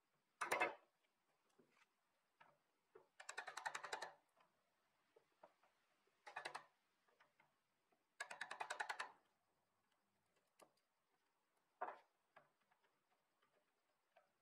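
Wood chisel paring red oak by hand: four short bursts of rapid crackling clicks, each under a second, with a few single ticks between them.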